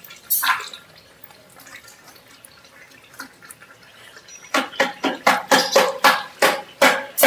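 Cream trickling from a carton into a large metal pot of simmering gravy, with small clicks. From about four and a half seconds in, a metal ladle scrapes and knocks against the pot in quick, regular strokes, about four a second.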